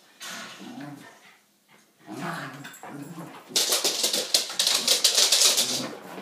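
A basset hound gives a few short calls, then makes a loud, rapid clatter from about three and a half seconds in as it runs and scrabbles across the hardwood floor.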